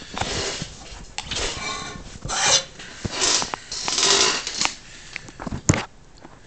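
Cloth rag and cleaning rod handled close up: a run of short rustling scrapes with a few small clicks.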